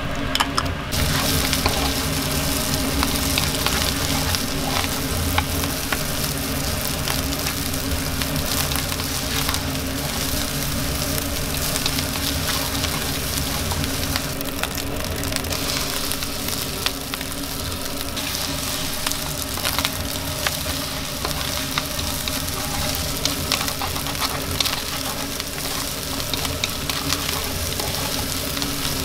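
Rice for nasi goreng frying in a hot oiled pan, a steady sizzle that grows louder and brighter about a second in as a liquid is poured onto it. The rice is stirred and tossed in the pan, adding scattered small clicks and scrapes.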